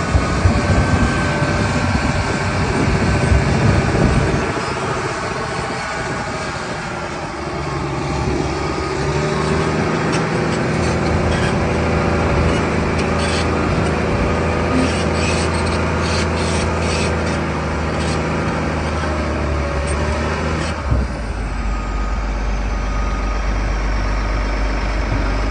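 Caterpillar D8T crawler dozer's diesel engine running, with a series of metallic clanks between about 10 and 17 seconds in. About 21 seconds in, the sound changes abruptly to a steady low engine drone.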